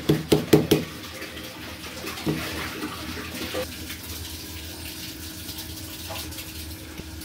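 A metal pestle pounding giloy stems in a metal mortar (imam dasta): quick strikes, about four a second, stopping about a second in. A steady hiss with a few light knocks follows.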